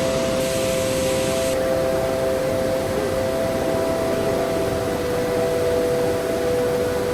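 A steady whooshing hum with a few constant low tones, like a motor or fan running without change.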